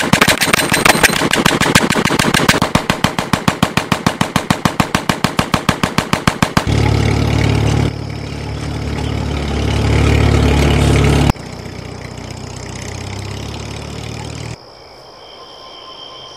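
Machine gun firing a long, rapid, even stream of shots that stops about six and a half seconds in. An old car's engine then runs for several seconds, changing level a couple of times, and near the end crickets chirp while the engine sounds faintly.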